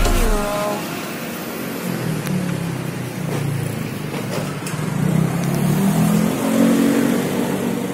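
An engine running, its low hum wavering and rising in pitch after about five seconds, with the tail of background music in the first half second.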